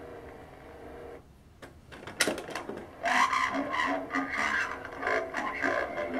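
Vintage G.I. Joe Trouble Shooter talking communication box playing back a recorded voice phrase slowly, scratchy and garbled, with a sharp click a little over two seconds in. The slow speed comes from the old, worn voice unit.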